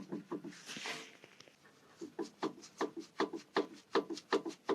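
Worn anti-roll bar drop link (stabilizer link) on a Ford Galaxy knocking. A few light clicks and a rustle come first, then from about halfway in a steady run of sharp knocks, about three a second. This is the knock of a faulty link with play in it.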